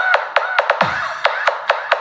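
Electronic dance music played through a 6.5-inch two-way coaxial car speaker set, with quick sharp percussion hits and short scratch-like sweeps. The deep bass kick drops out here.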